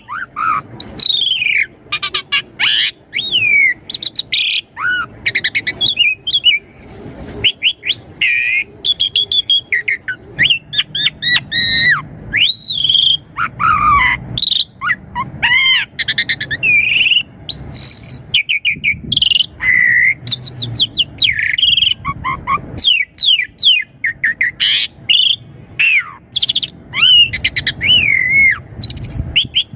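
Javan pied starling (jalak suren) singing without pause: a varied, rapid stream of slurred rising and falling whistles mixed with quick runs of harsh clicking notes.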